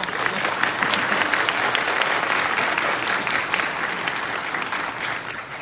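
Audience applauding: many hands clapping together, a few close by standing out as sharp separate claps. The applause builds quickly at the start and fades out near the end.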